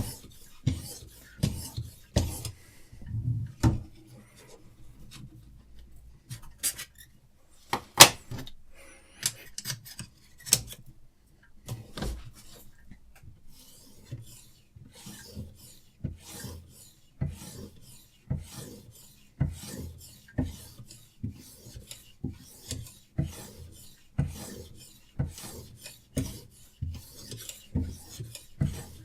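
Sharpening stone on a Hapstone RS guided sharpener being stroked along a survival knife's edge: quick repeated scraping strokes, about two a second. The strokes thin out early on, and there is a sharp click about eight seconds in.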